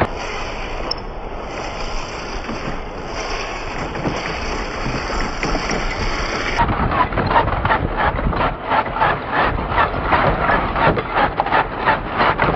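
Traxxas TRX-4 scale RC crawler driving over loose dirt, its tyres crunching, with a quick, even run of crunches in the second half.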